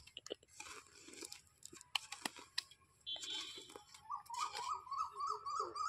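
Hoe blade chopping and scraping into dry, crumbly soil in irregular crunching strokes. A wavering tone comes in over the last couple of seconds.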